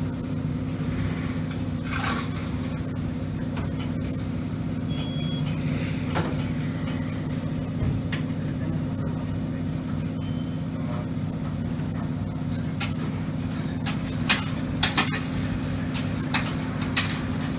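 Electric train heard from inside, with a steady low hum from its equipment. About three quarters of the way in, a string of sharp clicks and knocks begins.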